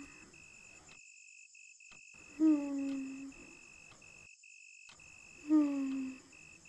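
Cartoon sleep sounds: a soft voiced snore, a short falling hum that comes back about every three seconds. Steady cricket chirping runs underneath.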